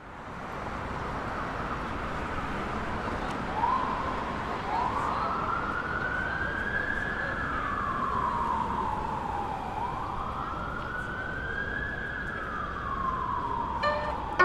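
A siren wailing in long, slow sweeps, each rising quickly and then falling slowly, over a steady hiss of street noise. Plucked string notes come in near the end.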